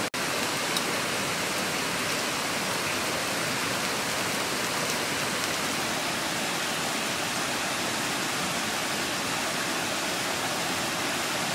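A steady, even rushing hiss that does not change, with a single faint click about a second in.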